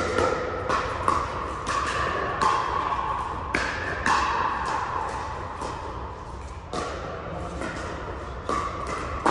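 Pickleball paddles hitting the hard plastic ball during a rally: a string of sharp pops at irregular spacing, with a pause a little past the middle. Each hit echoes in a large indoor hall.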